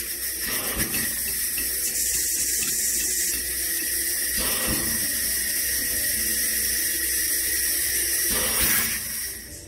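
Steady high hiss of pressurized gas being bled off a gas lift valve on a test bench to lower its set pressure toward 785 psi test rack opening. It has a few brief surges and stops near the end.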